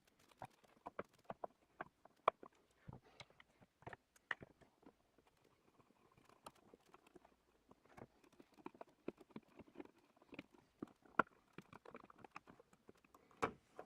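Faint, irregular clicks and taps of a screwdriver and hands working on an old paddle light switch in its wall box, as it is unscrewed and freed from the box.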